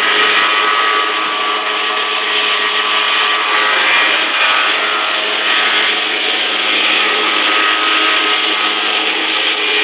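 Small engine-driven gardening machine running steadily and loudly, a constant hum under a dense whirring noise.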